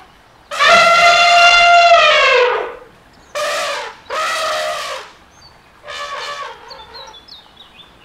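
Elephant trumpeting: one long, loud trumpet call that drops in pitch at its end, then two shorter calls in quick succession and a fainter fourth. Faint bird chirps come in near the end.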